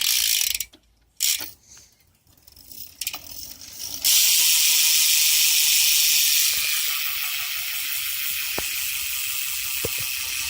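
A BMX rear hub, an Eclat Pulse, clicking as its ratchet pawls freewheel while the wheel spins. It gives a few short bursts at first, then from about four seconds in a continuous fast buzz of clicks that eases slightly partway through.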